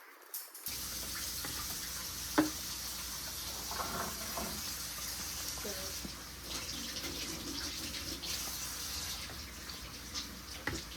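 Water running steadily into a container, starting suddenly just under a second in, with a sharp knock a couple of seconds later.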